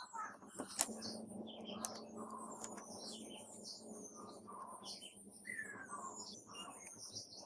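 Small birds chirping over and over, some calls sliding down in pitch, with a few sharp clicks early on.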